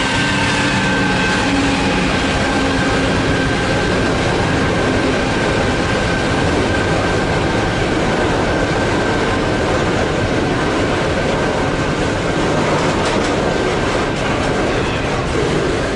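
Freight train wagons loaded with steel coils rolling past with a steady rumble and wheel clatter. Over the first several seconds the whine of the Qube QL-class diesel locomotives fades as they pull away.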